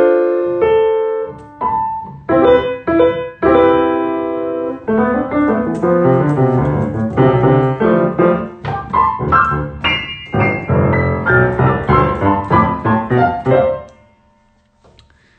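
Piano keyboard being played: a few held chords with short pauses between them, then about five seconds in, busier playing with many quick notes, stopping near the end.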